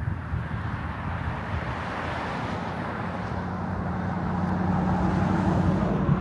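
A motor vehicle going by on a nearby road, its engine hum and tyre noise growing steadily louder toward the end.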